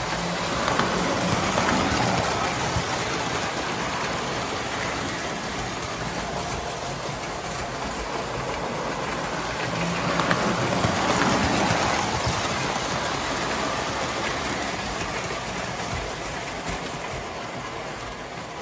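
Standard gauge tinplate electric toy trains running on three-rail track: a steady rumble and clatter of metal wheels on the rails. It grows louder twice as a train passes close, about a second in and again around ten seconds in.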